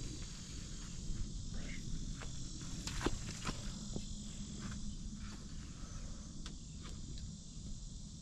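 Insects droning in a steady high-pitched chorus, with footsteps on dry grass and a few short clicks and knocks from handling gear.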